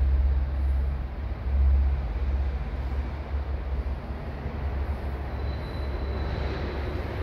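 Roll-forming machine for PGC and PGU steel-framing profiles running, a steady low mechanical drone. A faint high whine comes in briefly about five seconds in.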